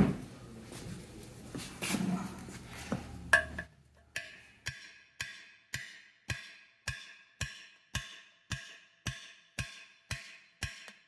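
Hammer blows on a steel punch driving out a Welsh-type core plug in a cast-iron engine block: a few scattered knocks and handling noise, then, about four seconds in, a steady run of sharp metallic strikes, just under two a second, each ringing briefly.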